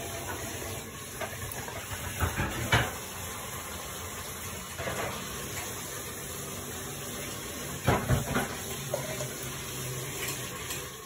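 Steady background hiss with a few short, soft knocks, a cluster a couple of seconds in and another later on.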